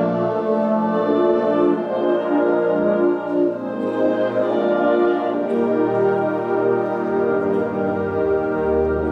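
Student concert band playing a festive piece: brass and saxophones hold sustained chords, and deep bass notes come in near the end.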